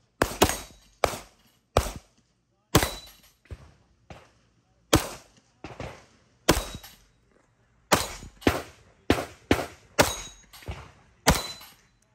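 Staccato pistols firing at a range: a string of sharp shots, irregularly paced at about one to two a second, some as quick doubles, each followed by a short echo.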